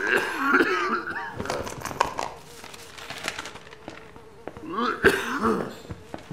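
A voice making two short wordless sounds, one at the start and one about five seconds in, amid scattered light clicks and a faint steady tone.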